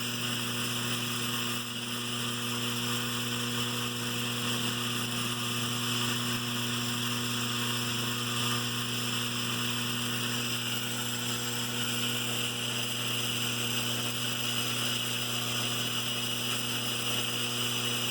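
Lionel 3656 operating cattle car's vibrating stockyard running: a steady AC electric buzz with a light continuous rattle as the vibration walks the cattle figures along the platform.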